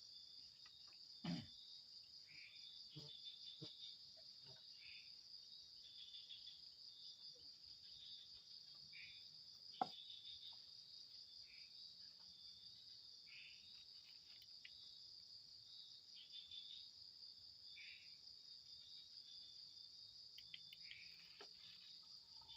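Faint chorus of crickets: a steady high-pitched trill, with short lower chirps every couple of seconds. A soft knock comes about a second in and a sharp click near ten seconds.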